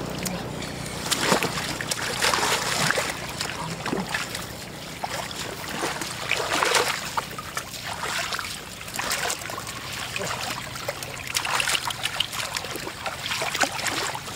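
Irregular splashing and sloshing in shallow floodwater, with sharp splashes coming in clusters over a steady watery wash.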